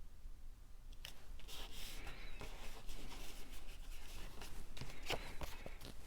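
Cardstock pieces being handled and pressed into place: faint paper rustling with light taps and clicks, starting about a second in.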